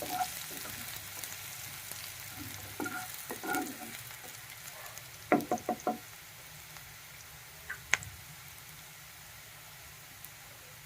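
Chopped onion sizzling in hot oil in a pan while it is stirred, with four quick knocks of the spoon on the pan about five seconds in.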